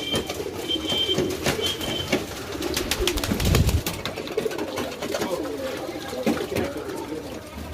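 Domestic pigeons cooing throughout, with scattered sharp clicks. A brief low rumble about halfway through is the loudest moment.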